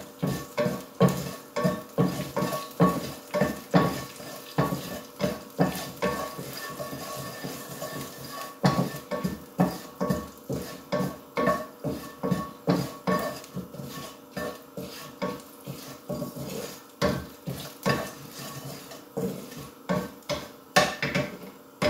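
A spatula knocking and scraping against a non-stick frying pan, about two strokes a second, as cumin seeds and whole dried red chillies are stirred and fried in a little oil, with a light sizzle of the oil.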